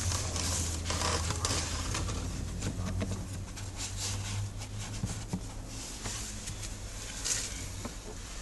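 Rustling and scattered light clicks, typical of a car's cabin air filter and its plastic housing being handled during replacement, over a steady low hum.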